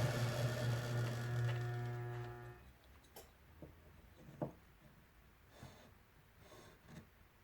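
Homemade wood lathe's treadmill motor running with a steady hum, which stops abruptly about two and a half seconds in. A few faint light knocks follow.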